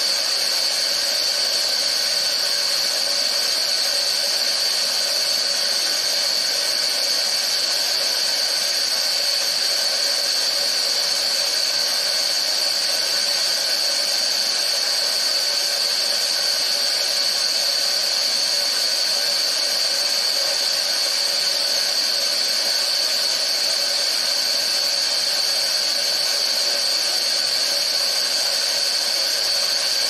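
Steady high-pitched hiss of pressurised CO2 escaping at a rocket engine's cold-flow test stand, unbroken and unchanging, with the tank held at about 32 bar.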